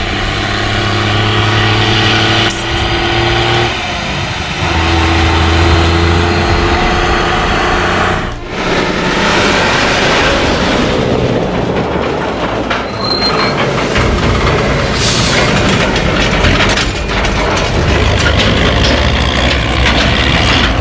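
MB Trac 1300 Turbo tractor's six-cylinder turbodiesel running under changing load, its engine note shifting several times, with a short hiss about fifteen seconds in.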